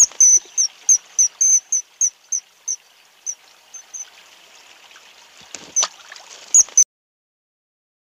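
Common kingfisher calling: a run of short, high, shrill notes about three a second, then a few more after a pause, over the faint rush of a stream. The sound cuts off suddenly about seven seconds in.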